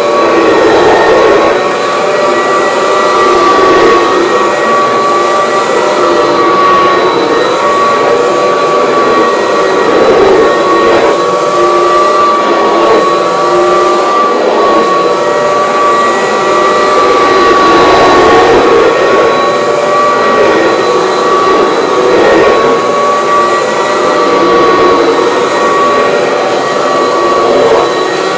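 Vacuum cleaner running steadily: a motor whine with a high, level tone over the noise of the air flow.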